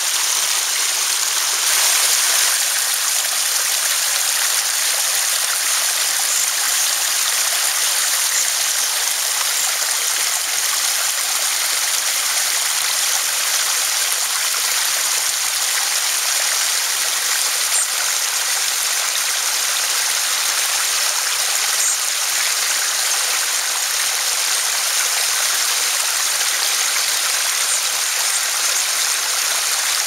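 Small garden waterfall steadily splashing and trickling over stacked rocks into a pond.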